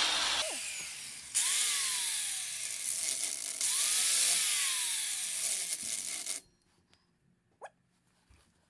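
Power tool run hard on the outer tie rod end nut, with a short easing off about a second in, then stopping about six seconds in.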